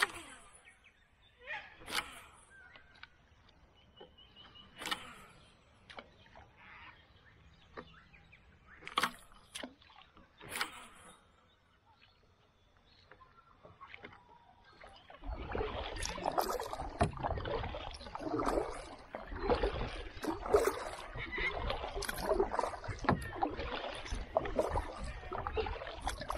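Canoe paddling on a river. The first half holds a few separate knocks, of the kind made by a paddle or gear against the fibreglass hull. About halfway in, continuous close splashing and sloshing of water starts and carries on.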